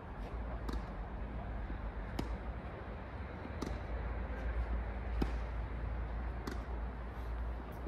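Tennis rally: a ball struck back and forth with rackets, about six sharp pops roughly one and a half seconds apart, over a steady low rumble.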